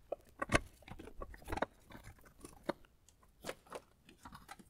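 Faint, irregular light clicks and knocks as a car's AC compressor and its metal refrigerant lines are shifted by hand.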